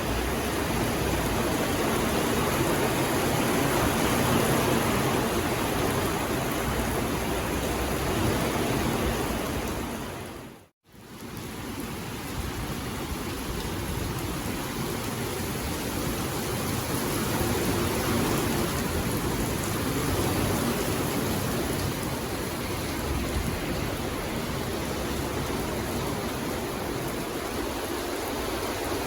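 Steady rain falling in a forest, a dense, even hiss. About eleven seconds in it fades out to silence for a moment and fades straight back in, like the join of a looped recording.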